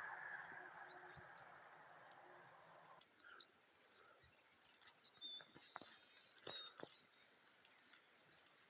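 Faint outdoor ambience: insects chirping in short, evenly repeated high pulses, with a few bird calls around the middle. A steady, even noise underneath cuts off about three seconds in.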